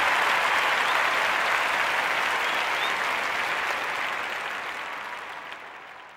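Audience applauding, fading out over the last few seconds.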